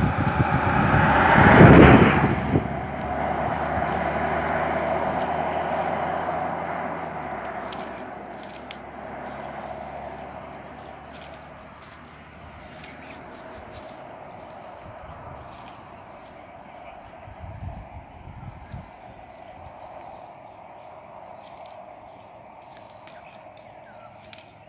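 A Range Rover SUV drives past close by, its engine and tyres loudest about two seconds in, then fading away over the next several seconds.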